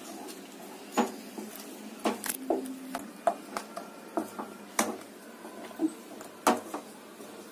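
Wooden spatula scraping and knocking against a metal kadai as thick, sticky cornflour halwa is stirred without pause, with irregular knocks about once a second. The halwa has begun to thicken and is being kept moving so it does not stick and catch on the bottom.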